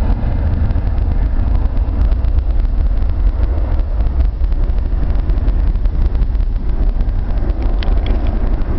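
Deep, steady rumble of jet engines at takeoff power as a Boeing 757-200 climbs away after lift-off, mixed with wind buffeting the microphone.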